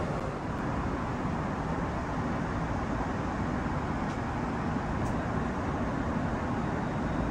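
Steady cabin noise of a Boeing 777-300ER in cruise: an even rushing hum of airflow and engines, heaviest in the low end, with no change in level.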